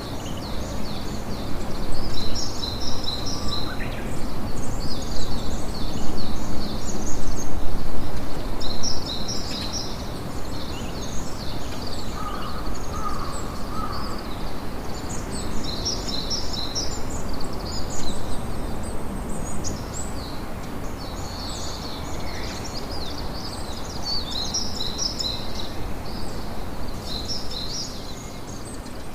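Sea surf and wind as a steady rushing noise, swelling for several seconds near the start, with small birds chirping rapidly and repeatedly throughout.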